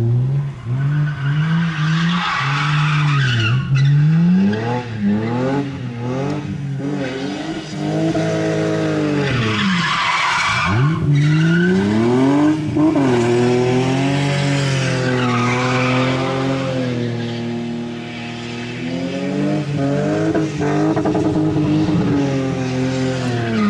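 BMW E30 estate doing a burnout in circles: the engine revs up and down again and again over the screech of the spinning rear tyre. The revs drop away at the very end.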